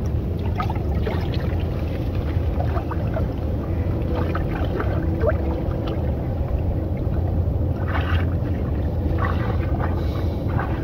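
A steady low rumble, with small splashes and drips of water as cupped hands are dipped into and lifted from the water, a short flurry of them about eight seconds in.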